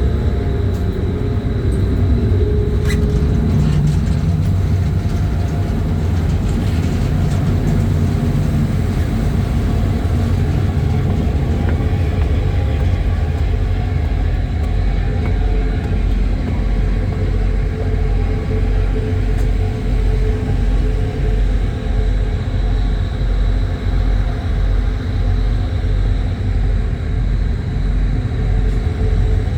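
Ferry engines running with a steady deep rumble and a faint high whine. From about halfway a low throb pulses roughly once a second.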